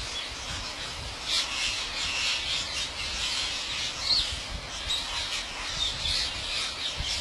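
Parrots squawking, short calls repeated again and again with some overlapping.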